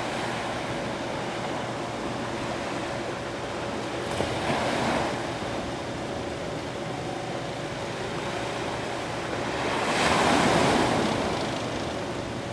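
Small waves washing onto the beach over a steady hiss of surf, with two louder washes, about four and a half seconds in and around ten seconds in, the second the loudest. A faint steady hum runs underneath.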